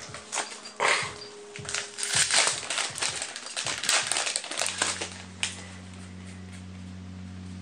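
Trading cards and their packaging being handled: a run of crinkles and rustles for about four and a half seconds, then a steady low hum.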